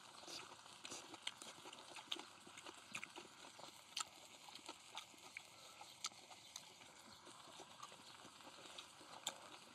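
Pork belly sizzling faintly on a cast-iron cauldron-lid griddle: a low steady hiss with scattered sharp pops and clicks.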